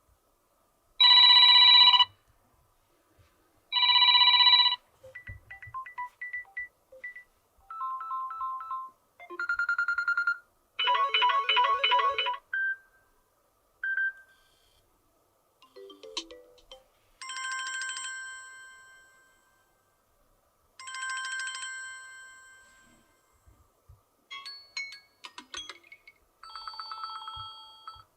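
Samsung Galaxy A13 default alarm tones previewed through the phone's loudspeaker one after another. There are about ten short electronic melodies and chimes, each cut off after a second or two as the next is selected.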